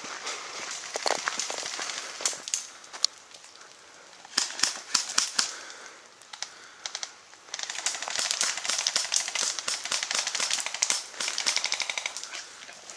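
Airsoft guns firing with sharp, snapping clicks: scattered shots in the first half, then long rapid strings of full-auto fire from about seven and a half seconds until near the end.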